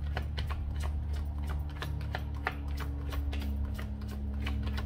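Tarot cards being shuffled by hand, a quick irregular patter of card clicks and slaps. A steady low hum runs underneath.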